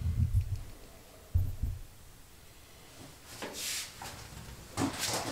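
Handling noise: low bumps and a knock as the camera is moved and set down, then two brief rustles.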